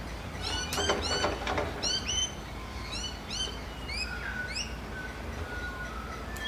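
Birds calling in a series of short, high chirps, several in quick succession, with a brief burst of clattering clicks about a second in over a steady low rumble.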